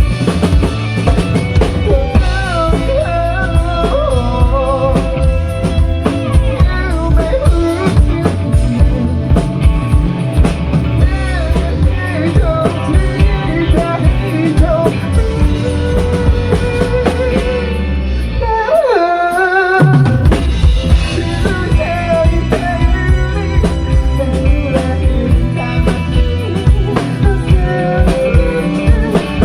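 Rock band playing with drum kit and bass drum under a singer's wavering vocal line, with a sharp falling pitch slide about two-thirds of the way through.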